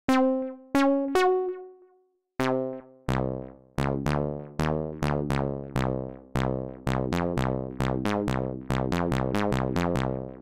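Analog-style synthesizer sounds from the Raw Voltage expansion for Native Instruments Maschine, played as single notes from the pads. There are three higher notes, then a run of deeper bass notes that comes faster toward the end.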